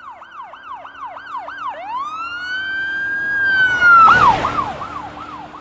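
Electronic emergency-vehicle siren of the police kind, sweeping quickly up and down about four times a second, then switching about two seconds in to one long rising tone held high before falling back into the fast sweeps. A brief rushing burst near the loudest point, about four seconds in.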